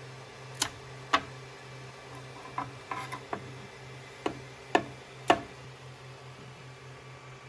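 A 3D-printed plastic box clicking and knocking as it is pulled off a 3D printer's bed and handled, about eight sharp sounds, some singly and a few in a quick cluster in the middle, over a steady low hum.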